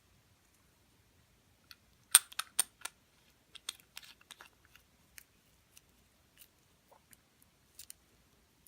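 Small, sharp metal clicks and taps as a watch case back and its tools are handled and fitted onto the case: a quick cluster of louder clicks about two seconds in, then scattered lighter ticks.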